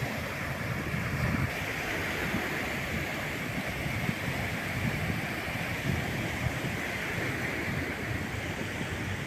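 Atlantic surf washing steadily onto a beach, with wind rumbling on the microphone.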